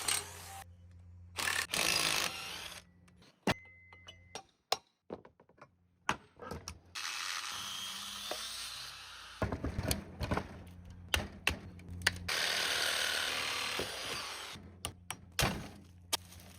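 A power tool running in short bursts, with metal clanks and knocks, as an industrial electric motor is unbolted and taken apart.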